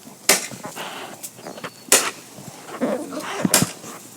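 Roman candle firing: three sharp pops, about a second and a half apart.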